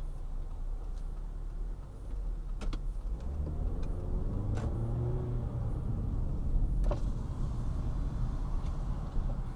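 Car engine and road noise heard from inside the cabin, the engine pulling up as the car accelerates about three seconds in. A few short sharp clicks or knocks come through, the clearest about seven seconds in.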